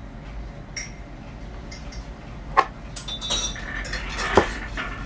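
Cutlery on tableware: a fork clinking and knocking against a plate, with a short ringing clink a little past three seconds and sharper knocks about two and a half and four and a half seconds in, over a low steady room hum.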